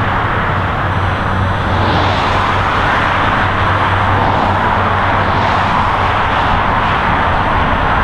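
Steady rush of highway traffic: tyre and engine noise from cars, motorcycles and trucks passing at speed, swelling a little as single vehicles go by, over a constant low hum.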